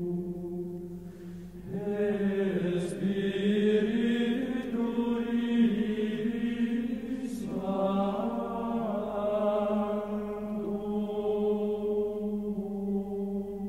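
Background music: a chant-like vocal drone of long held notes, growing fuller about two seconds in.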